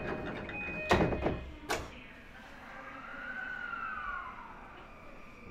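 Passenger doors of an E235-1000 series train sliding shut, with a loud thud about a second in and another shortly after. A faint tone then rises and falls.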